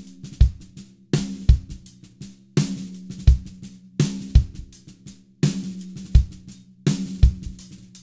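Drum kit groove played on a Dunnett 14x6 snare tuned low, its heads a quarter turn past finger tight, with bass drum and cymbals. The pattern repeats about every one and a half seconds.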